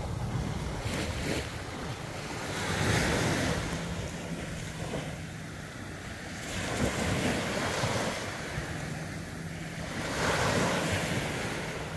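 Small sea waves breaking and washing up a sandy shore, the surf swelling three times, with wind buffeting the microphone.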